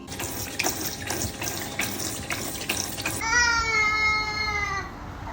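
Water running or splashing for about three seconds, then a high, drawn-out cry that falls slightly in pitch and lasts about a second and a half.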